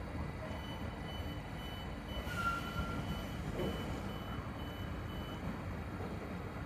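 Steady low rumble of a freight train of car-transporter wagons running away along the far track. A faint row of short high beeps, about two a second, runs through the first five seconds.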